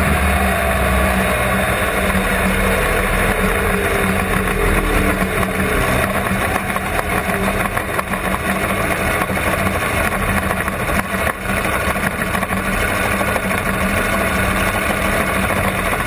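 Supercharged big-block Chevrolet V8 of an alcohol-burning rear-engine dragster running steadily at low revs, near idle, while the car rolls slowly along.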